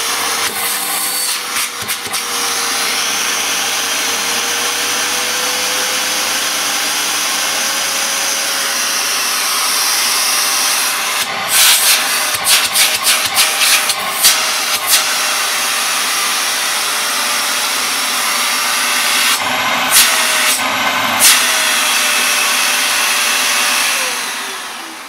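Hoover Telios Pets 1700 bagged cylinder vacuum cleaner running steadily, far from silent but not unpleasant and without a high-pitched scream, its motor note creeping slowly up in pitch at first. A quick series of clicks and knocks comes about halfway through and twice more a few seconds later, and near the end the motor winds down.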